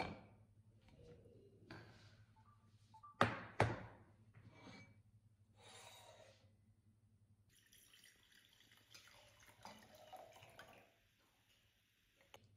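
Sparkling natural wine being poured from the bottle into a wine glass and fizzing, a dense hiss lasting about three seconds in the second half. Earlier come two sharp clicks half a second apart, the loudest sounds.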